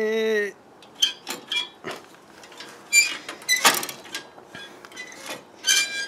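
Scattered light metal clicks and clinks, some briefly ringing, from hands handling the steel throttle linkage and locking pliers on a go-kart frame, after a short hummed 'mm' at the start.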